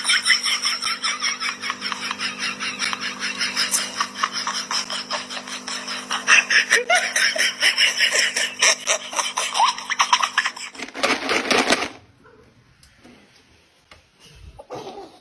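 Someone laughing hard in rapid, high-pitched bursts over a steady low hum. The laughter breaks off about eleven seconds in with a short, loud rush of noise, and then it is much quieter.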